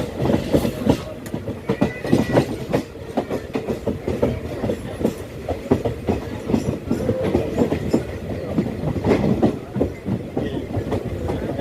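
Express train passenger coach running on the track, heard from on board: a continuous rumble with frequent irregular clickety-clack of the wheels over rail joints.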